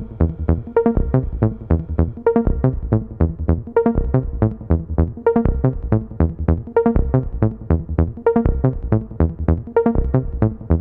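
Background electronic music made of quick, evenly spaced plucked notes over a low beat.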